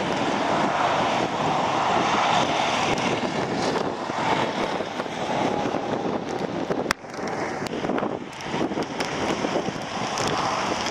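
Gusty storm wind rushing across the microphone, with traffic going by on the highway; the sound breaks off abruptly about seven seconds in and the wind noise carries on.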